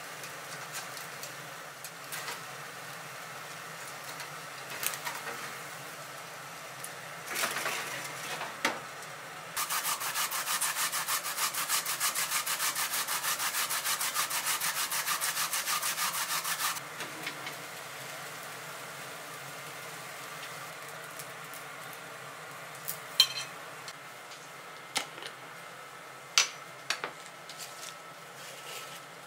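Daikon radish being grated on a handheld grater: a run of quick, even rasping strokes lasting about seven seconds. A few sharp clicks follow near the end.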